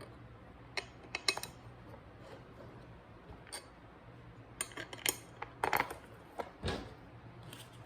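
Small metal parts and hand tools clinking and tapping as they are handled, in scattered clicks with a duller knock near the end, over a low steady hum.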